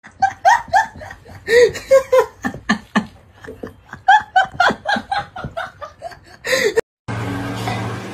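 A person laughing hard in quick, high-pitched bursts, some breathy and wheezing, over a mess of flour on the cat's face. The laughter cuts off abruptly about seven seconds in, giving way to a steady low hum.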